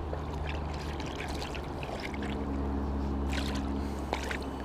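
Small sea bass splashing at the water's surface as it is drawn in to the bank, several short splashes with the loudest about three seconds in, over a steady low hum.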